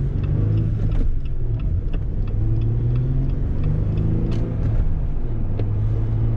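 Inside the cabin of a 2018 Jeep Wrangler JL Rubicon cruising on BF Goodrich All-Terrain 285/70R17 tires: a steady low drone of engine, road and wind, with only a little tire hum, and scattered light clicks and rattles.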